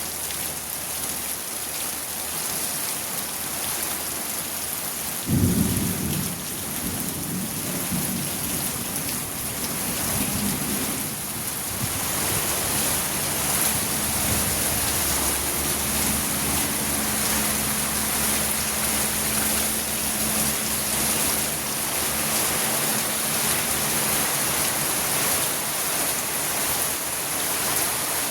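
Rain falling steadily, with a clap of thunder about five seconds in that rumbles on for several seconds.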